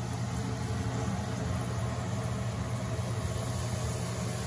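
Strips of crostoli dough deep-frying in a pan of hot oil, sizzling and bubbling steadily over a constant low hum.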